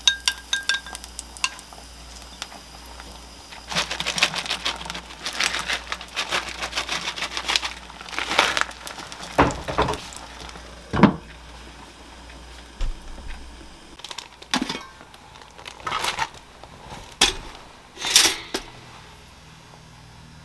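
Plastic packaging crinkling in rapid clicks, as shredded mozzarella is sprinkled from its bag, followed by several separate sharp knocks and clicks.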